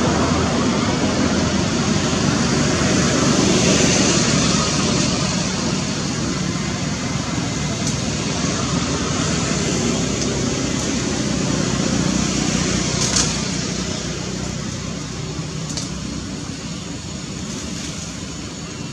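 Steady rushing outdoor background noise with a few brief clicks, slowly fading toward the end.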